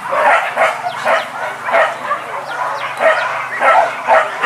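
Hunting dogs barking and yelping, short calls coming several times a second without a break.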